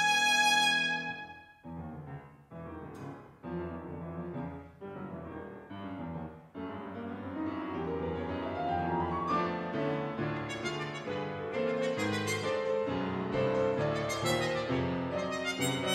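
Trumpet with grand piano accompaniment: the trumpet's long held note ends about a second and a half in, then the piano plays alone, detached chords and then a rising run into busier figures, and the trumpet comes back in near the end.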